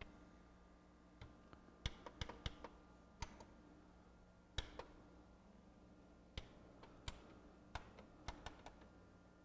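Pioneer PD-DM802 CD changer's mechanism ticking with faint, irregular clicks, some in quick clusters, over a low steady hum, as it labours against a disc jammed partway out of its magazine.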